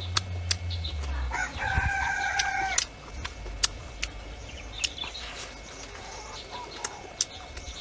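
A rooster crowing once: one long, level call of about a second and a half, starting about a second and a half in. Scattered sharp clicks sound around it.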